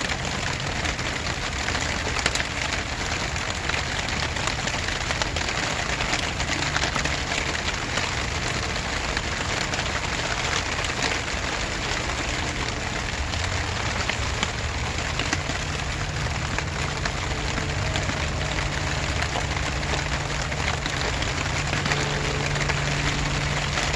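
Steady rain falling, with many close drops ticking and pattering. A low steady hum runs underneath and grows louder in the second half.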